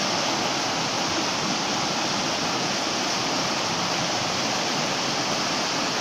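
Stream water running steadily, a constant rushing of water.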